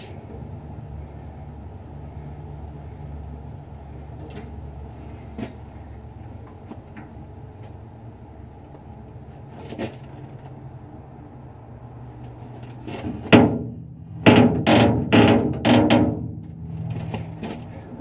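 Steel truck-box door hinges creaking and squeaking in several loud bursts late on as the door is swung, freshly oiled but not yet worked in, over a steady low hum.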